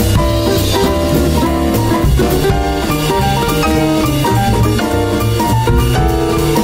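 Instrumental background music with a melody over a steady drum beat.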